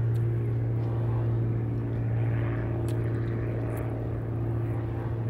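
Propeller airplane engine droning steadily with an even, unchanging pitch.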